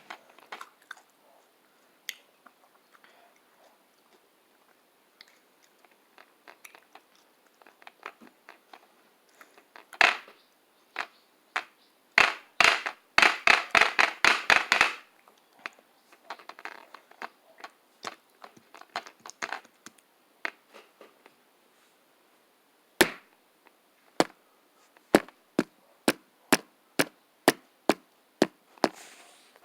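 Raw cucumber being bitten and chewed close to the microphone: crisp, wet crunches in scattered bunches, a quick run of them midway, then single crunches at an even pace near the end.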